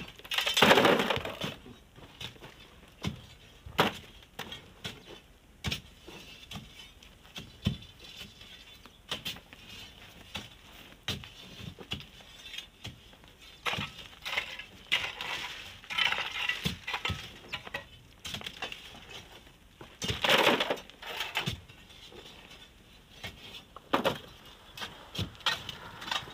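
Hand tools working a packed sand-and-rock face: irregular knocks, clinks and scrapes of hoes and a long iron prying bar biting into sand and stones, with a couple of longer, louder scraping rushes about a second in and again about three quarters of the way through.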